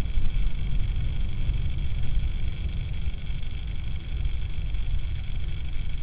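Steady low rumble with a faint thin hiss above it, the background noise of an outdoor webcam microphone at night; no owl call is heard.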